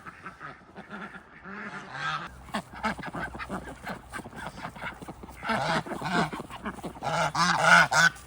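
Domestic ducks quacking, a run of short calls that grows louder, with a quick burst of calls near the end.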